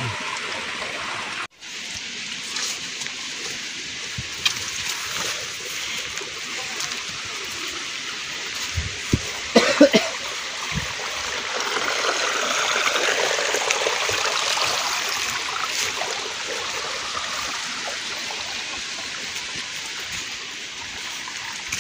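Steady rush of running water, first from a bamboo spring spout pouring into a plastic bottle. The sound cuts out for an instant about one and a half seconds in, then continues as a steady rushing, with a few soft thumps around nine to ten seconds in.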